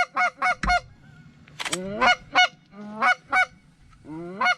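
Canada goose honks in quick runs of three or four calls, about three a second, with short breaks between runs. A dull low thump comes just under a second in.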